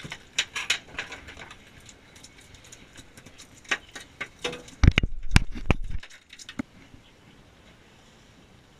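A freshly caught chub mackerel flapping on a boat's deck, making a scatter of quick taps and slaps, with a few heavy thumps about five seconds in as it is grabbed.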